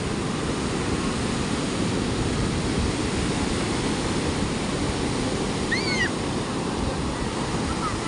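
Ocean surf breaking and washing up onto a sand beach, a steady rushing noise, with a brief high-pitched call about six seconds in.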